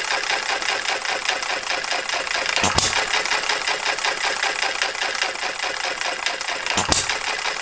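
Farm Boy hit-and-miss model engine running on its governor: a fast, steady mechanical clatter as it coasts on its flywheels, with a sharp firing bang twice, about four seconds apart. It fires when it slows to about 570 rpm and coasts without firing once it is up to about 650 rpm.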